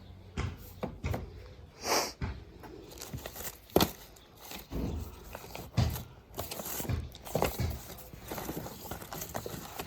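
Irregular handling noises from sorting through a box of old magazines and other items: paper rustling, with scattered taps and knocks of things being picked up and set down.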